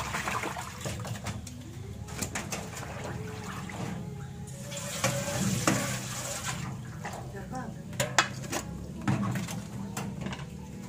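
Dishes being washed in a stainless steel sink: pots, a wok and utensils knocking and clinking against the metal, with tap water running for a stretch in the middle.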